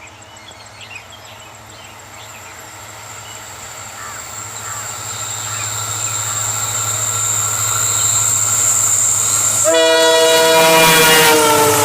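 High-speed Indian Railways train approaching, its rumble growing steadily louder. About ten seconds in, its multi-tone horn sounds and drops in pitch as the train rushes past.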